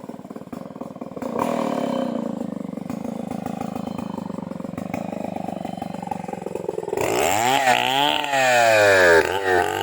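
Stihl chainsaw engine running steadily at low revs, louder from about a second in. From about two-thirds of the way through it is revved up and down repeatedly, the pitch sweeping high and back.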